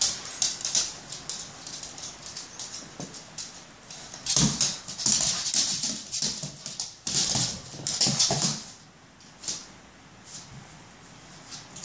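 A dog chasing and pawing at a laser pointer dot on a hardwood floor: claws clicking and scrabbling on the boards, with short whimpers, loudest in clusters from about four to eight and a half seconds in.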